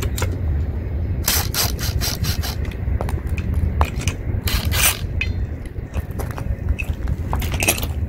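Cordless drill driving a bead buster clamped on a steel wheel's rim, with repeated scraping, rubbing and sharp clicks from the tool against tire and rim as the tire bead is broken loose, over a steady low rumble.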